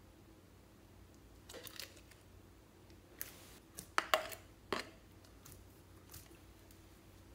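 Clear slime being scraped out of a plastic bottle with a metal spoon into a glass bowl of sequins: soft sticky slime sounds and scattered clicks of the spoon against bottle and bowl, the sharpest few a little after four seconds in.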